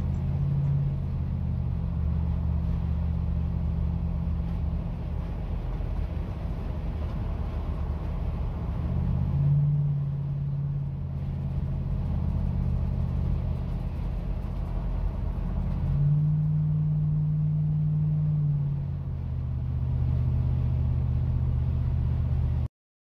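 Road noise heard from inside a vehicle cruising at highway speed: a steady low rumble of tyres and engine, with a low drone that swells for a few seconds around the middle and again later on. It cuts off suddenly near the end.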